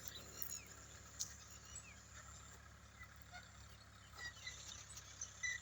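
Faint outdoor ambience with scattered short, high bird chirps and a few light clicks over a low steady hum.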